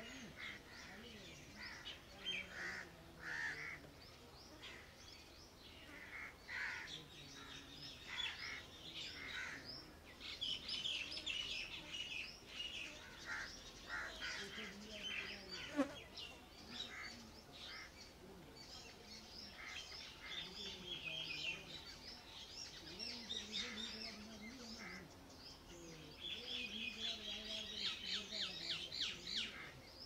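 Small songbirds chirping and twittering, with many short overlapping chirps and several runs of rapid trills.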